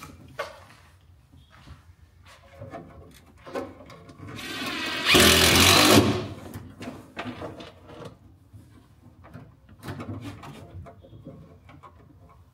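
A power drill spins up about four seconds in and runs hard for about a second, driving a screw down into a wooden platform board. Scattered light knocks and handling clicks sound around it.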